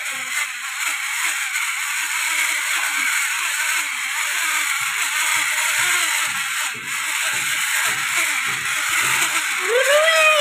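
Small plastic toy truck pushed by hand across a wooden floor, its plastic wheels rolling and rattling unevenly, over a steady hiss.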